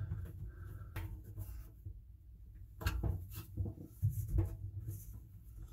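Hand screwdriver driving screws into a clothes dryer's lint-trap housing, with several clicks and knocks of the metal and plastic parts being handled.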